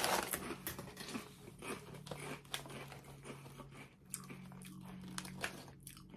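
A person biting into a potato chip with a loud crunch, then chewing it with irregular crisp crunches.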